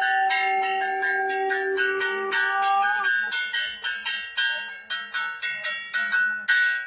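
Brass hand bell rung in quick, steady strokes, about three a second, for the aarti. For the first three seconds a long held note sounds with it, then bends upward and stops.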